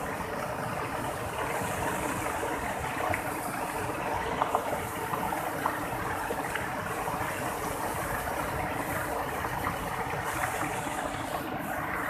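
Waterfall and rapids rushing steadily over boulders, a constant roar of white water, with a few faint clicks about four to six seconds in.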